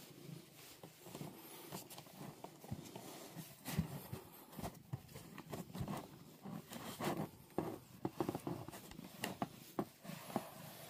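Close handling sounds: a hand and a tissue rubbing and patting a cat's fur inside a cardboard box, with soft rustling and irregular light clicks and knocks.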